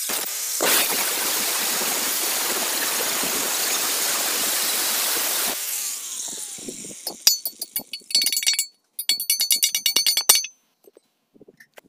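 A steady hiss for about the first five and a half seconds, cutting off abruptly, then a run of ringing hammer blows on a steel rectangular tube, bending its notched tabs over.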